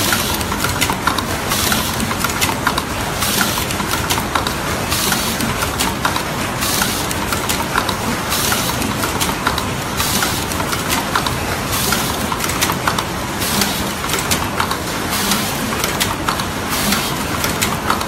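WTM-22 automatic copper foil taping, soldering and cutting machine running in its cycle: a steady mechanical clatter of quick clicks and clacks, with a short hiss of air from its pneumatic cylinders about every two seconds.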